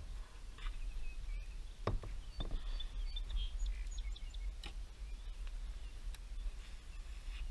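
Small birds chirping in short high notes, most of them between about one and four seconds in, over a steady low rumble. A few sharp knocks come around two seconds in and again near five seconds.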